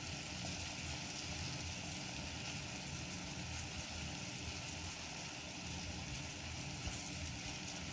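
Saucepan of kahwa simmering on a stove burner: a steady hiss with an uneven low rumble underneath.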